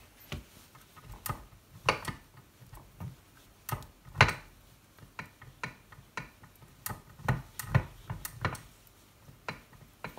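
Irregular metal clicks and clunks, with one louder knock about four seconds in, from the gears and spring-loaded ball of a Boxford Model A lathe headstock being worked by hand. The ball does not catch cleanly; the owner thinks it is a little small.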